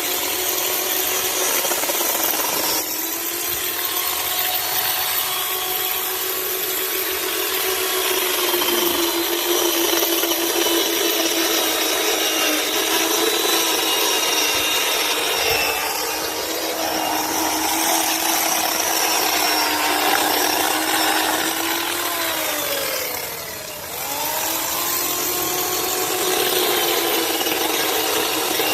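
A chainsaw running and cutting wood, its engine pitch wavering as it works. Late on the pitch and level sag briefly under the load of the cut, then pick up again.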